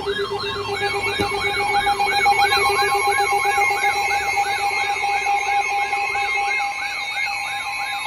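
Emergency alert tones sounding together. A fast warbling alarm tone cycles about three times a second, and about a second in a steady two-tone attention signal joins it, as for a severe weather warning.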